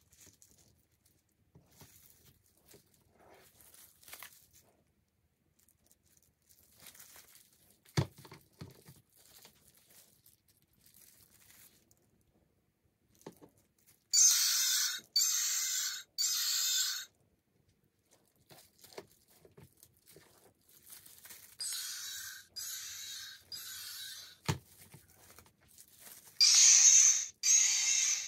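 Sound box in a soft rubber T-rex toy playing tinny, noisy dinosaur roars from its small speaker when its belly button is pressed. It plays three times, each a run of about three short roars: about halfway through, around two-thirds of the way, and at the very end. Before that come soft rubbing and one sharp knock as the rubber toys are moved on the shelf.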